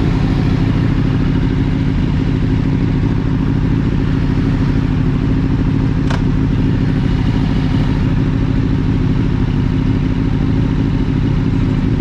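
Motorcycle engine running at a steady speed, its pitch holding even, with a single sharp click about six seconds in.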